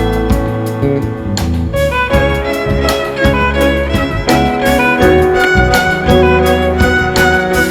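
Wedding music played by a live string ensemble, violins leading over a steady bass line.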